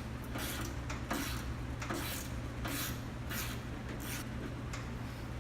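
Hand ratchet wrench making repeated short raspy clicking strokes, about one every 0.7 seconds, as 7/16 bolts are backed out of a car door. A steady low hum runs underneath.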